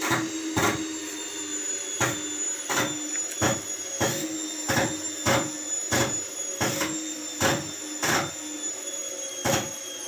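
IFB front-load washing machine motor running with a steady whine that sinks slowly in pitch, broken by sharp irregular snaps roughly once or twice a second from sparking inside the motor: the sign of a shorted, damaged motor.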